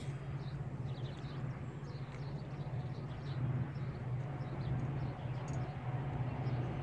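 Outdoor ambience: small birds chirping faintly over a steady low hum and a background hiss.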